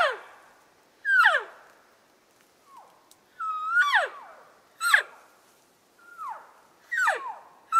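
A series of elk cow calls: high, whining mews, each starting with a short held note and sliding sharply down in pitch, repeated roughly every second, about seven times, some overlapping.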